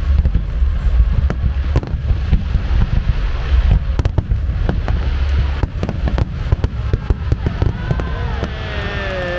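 Fireworks finale: a dense barrage of aerial shells bursting over the sea with ground-level fountains, a continuous heavy rumble of booms broken by many sharp cracks.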